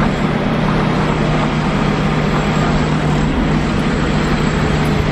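Steady, loud mechanical rumble with an unbroken low hum.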